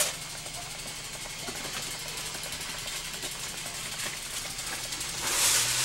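Steady low hiss with a faint low hum, typical of an old camcorder's background noise, and a short burst of noise near the end.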